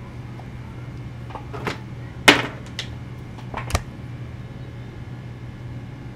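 A handful of short clicks and knocks from objects being handled, the loudest about two seconds in, over a steady low hum.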